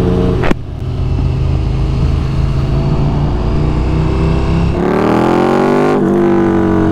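KTM 1290 R Super Duke's V-twin engine through a LeoVince LV-10 slip-on exhaust, pulling under way: a brief break in the sound about half a second in as it shifts up, then the pitch climbs slowly; near five seconds the sound changes and rises again, with another short break near six seconds.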